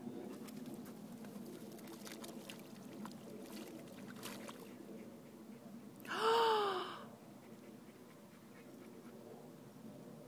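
A short vocal exclamation about six seconds in, a single rise-and-fall like a gasp or groan, over faint low background noise.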